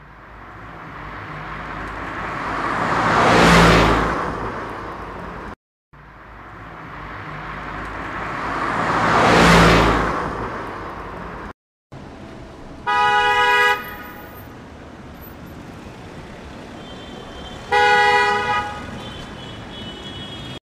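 Car sound effects: a car passing by twice, each time swelling to a peak and fading away. Then a steady low engine hum, with two short car-horn honks about five seconds apart.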